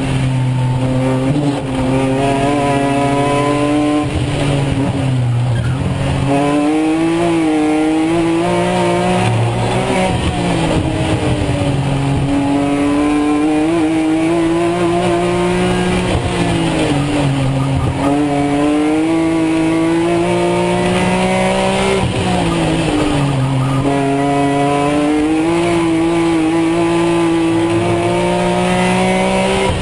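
BMW Z4 M Coupe race car's straight-six engine heard from inside the cockpit at racing speed, pitch climbing through the gears and dropping sharply several times as the driver lifts and brakes for corners.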